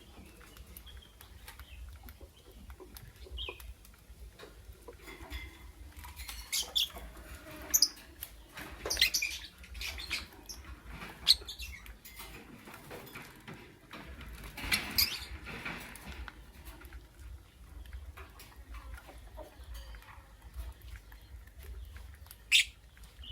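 Lovebirds giving short, high-pitched chirps and squeaks every few seconds, with light clicking and scratching between the calls over a steady low hum.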